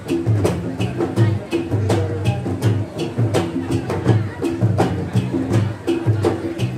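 Traditional Garo Wangala dance music: drums beating a steady rhythm, with sharp regular strikes about three to four times a second over repeating low drum notes.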